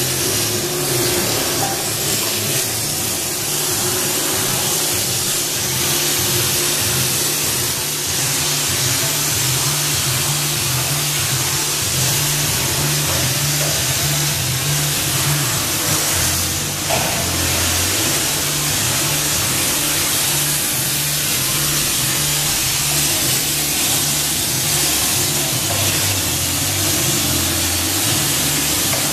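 Background music with a bass line that steps between a few notes and a dense, steady hiss over it.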